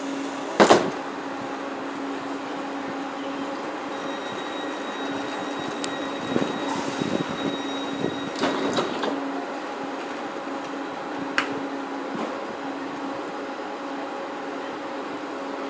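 Railway platform ambience: a steady low hum throughout. A loud sharp knock about half a second in is the loudest sound, and scattered lighter clicks and knocks follow, with a thin high steady tone for a few seconds in the middle.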